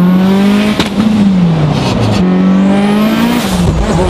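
Turbocharged four-cylinder engine of a heavily modified Mitsubishi Lancer Evolution accelerating hard, heard from inside the cabin. The engine note climbs, falls back about a second in, then climbs again and dips once more near the end, while a high whistle rises over it.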